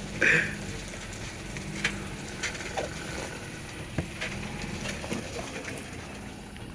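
Old sand truck's engine running steadily at low revs, with scattered knocks and rattles from the truck on a rough dirt track. A brief high-pitched squeal just after the start is the loudest sound.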